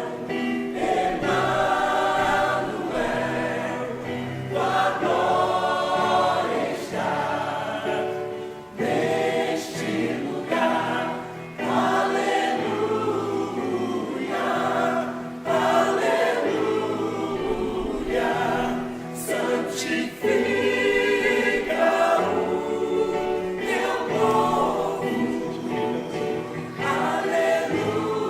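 Church choir singing a hymn, in continuous phrases with short breaths between them.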